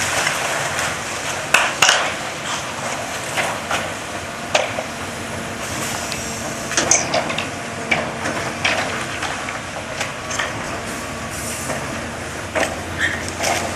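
Hydraulic demolition excavator at work: its engine running steadily under a scatter of sharp metal clanks and scrapes as its grapple jaws handle a long steel beam and debris.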